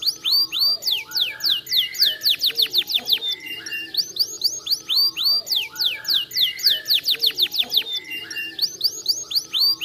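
Domestic canary singing: fast runs of falling whistled notes, several a second, broken by short held notes and trills, in phrases that repeat over and over.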